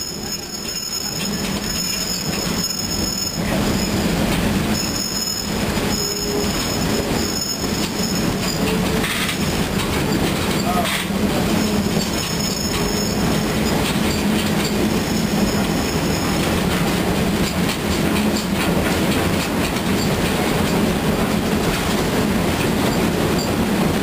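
Open-sided railroad passenger car rolling along the track: a steady rumble of wheels on rails, with a high-pitched wheel squeal that comes and goes, lasting several seconds at a time, in the first third and again around the middle.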